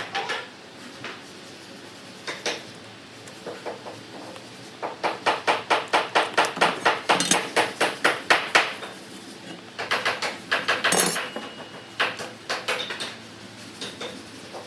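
Hammer blows in quick runs of about four to five strikes a second, the longest lasting about four seconds, with single knocks and short pauses between.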